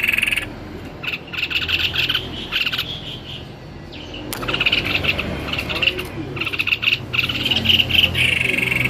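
White-necked babbler singing: rapid chattering phrases, with a long steady trill at the start and another near the end.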